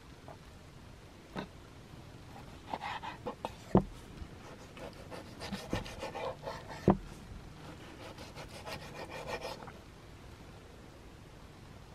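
Kitchen knife cutting on a wooden cutting board: a run of quick scraping strokes, with two sharp knocks of the blade on the board, about four and about seven seconds in.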